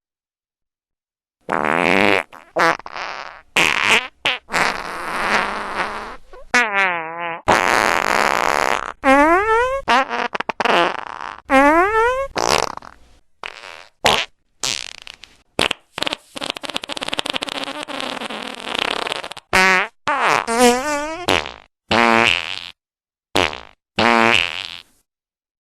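A run of about fifteen fart sound effects, one after another with short silent gaps. Some are brief and sputtering, some have a wobbling pitch that slides up or down, and one long sputtering fart lasts about five seconds.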